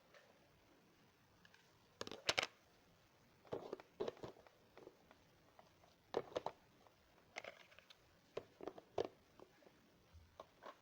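Plastic snack packets crinkling in short bursts as they are handled, the loudest cluster about two seconds in, then several more spaced over the following seconds.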